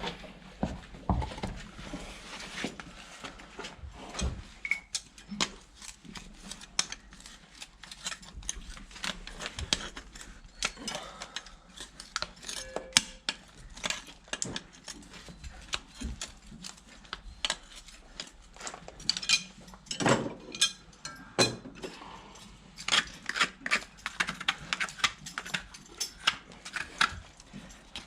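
Hoof tools paring and scraping a horse's hoof: a run of irregular short scrapes and clicks, coming thicker in the second half.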